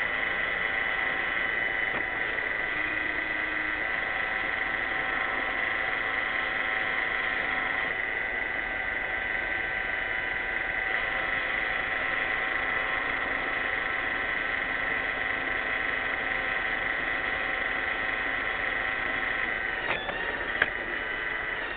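Roomba 600-series robot vacuum running: a steady whir of its vacuum motor and brushes with a high, steady whine. Near the end the pitch wobbles briefly and there is one sharp click.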